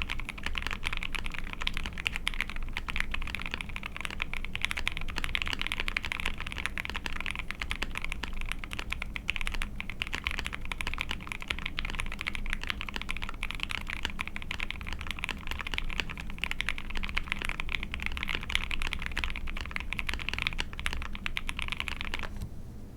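Continuous fast typing on an ai03 Vega mechanical keyboard with a POM plate and SP-Star Yanyu linear switches (polycarbonate housings, POM stems, lubed with Krytox 205g0). It makes a dense, even stream of key strokes that stops suddenly near the end.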